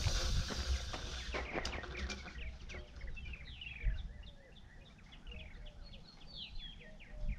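Small birds chirping: quick, high, downward-sliding notes repeated many times, with lower arched calls mixed in partway through. A few light clicks and knocks come early on.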